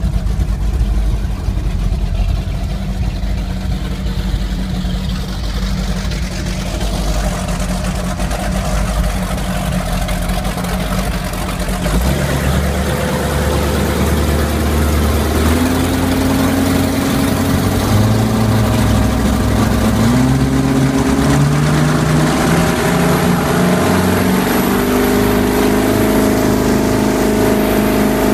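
Big Bat Boat 28 powerboat engine running low and steady, then from about twelve seconds in rising in pitch in several steps as the boat accelerates, and holding a higher speed near the end.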